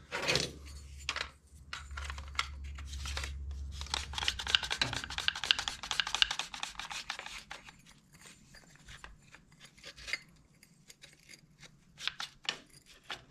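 Hands handling small parts and packaging: a dense run of rustling and light clicks, busiest in the middle, thinning to a few scattered clicks near the end.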